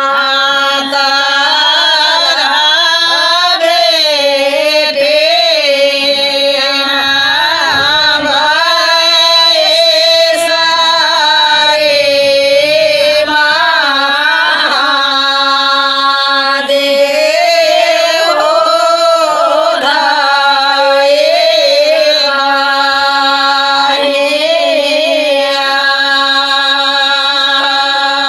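Several women singing a Bagheli wedding folk song (vivah geet) together, in long held notes with wavering ornaments.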